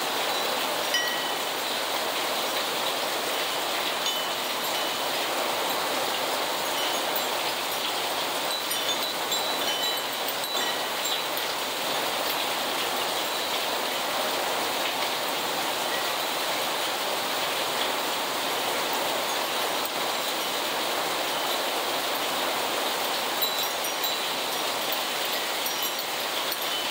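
Steady rain pouring down onto a yard and street, an even hiss with no letup. Short high ringing tones sound now and then through it.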